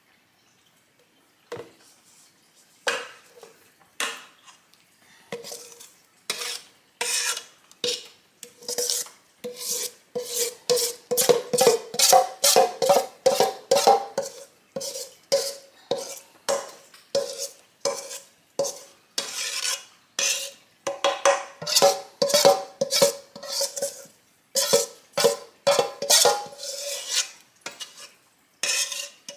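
A metal spoon scraping cornbread batter out of a stainless steel mixing bowl in repeated strokes, about two a second at the busiest, and the bowl rings with a short note at each stroke.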